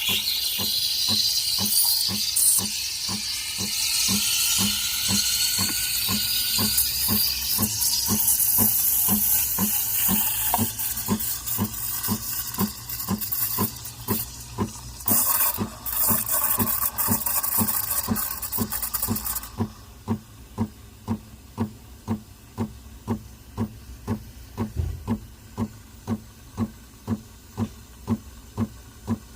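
Breville Barista Pro steam wand hissing into a jug of milk, with a changing tone in the hiss as the milk is steamed. Under it the machine pulses steadily about twice a second. The steam cuts off about two-thirds of the way through, and the regular pulsing goes on alone.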